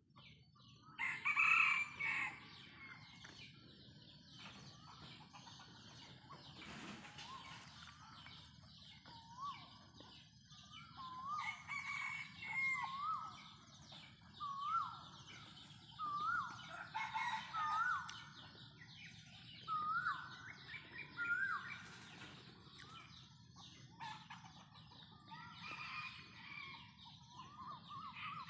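Farmyard chickens, with a rooster crowing, and other birds calling. Through the middle comes a series of short calls about a second apart, climbing in pitch.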